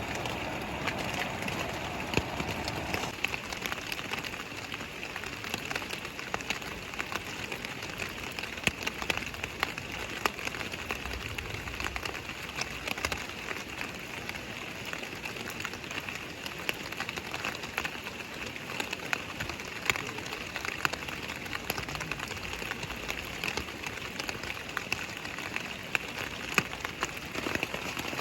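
Cold rain falling, with many scattered drops ticking, over the steady rush of a mountain stream. A lower rushing sound drops out about three seconds in.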